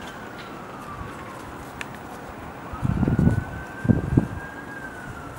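A siren wailing slowly down and up in pitch, one long cycle. Two low rumbling thumps about three and four seconds in are louder than the siren.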